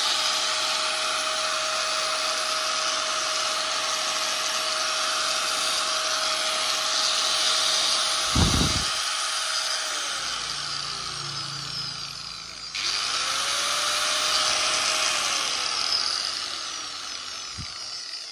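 100-volt, 720 W Hitachi 100 mm angle grinder running free with no disc, a steady whine. It is switched off about ten seconds in and winds down, then is started again about thirteen seconds in, runs briefly, and winds down once more near the end. There is a short low thump about eight seconds in.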